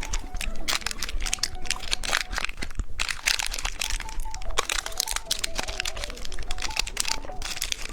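Plastic candy packaging crinkling and crackling as it is handled and opened, in many quick irregular crackles.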